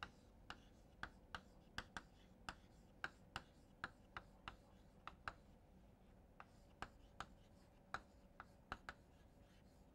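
Chalk writing on a chalkboard: a run of faint, sharp taps and short scratches, about two a second, with a pause of about a second midway.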